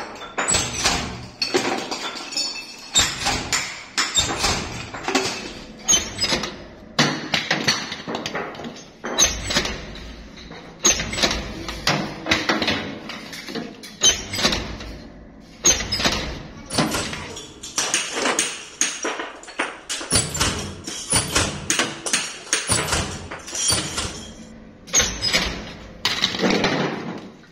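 Metal air-filter canisters clanking and clattering while they are handled, pressed in a foot-operated spot welder and tossed onto a pile of finished filters. The sound is a run of irregular, sharp knocks, several a second at times.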